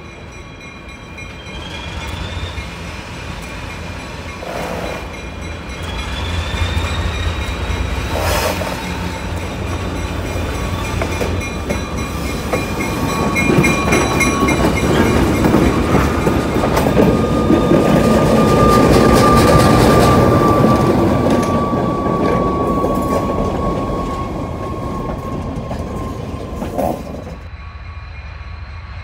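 ALCO S2 and RS1 diesel locomotives hauling a freight train past at close range, engines running and growing louder to a peak about two-thirds of the way through. A long, slowly falling squeal of wheel flanges on the rail runs through the middle. The sound drops off suddenly near the end.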